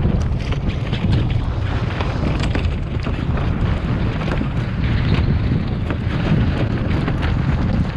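Strong wind buffeting the microphone in a steady low rumble, over the hiss and irregular slaps of rough sea against a small open sailboat.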